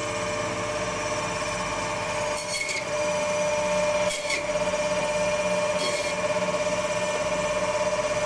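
Meat band saw running with a steady whine and hum, its blade rasping through bone-in goat meat as pieces are pushed through it.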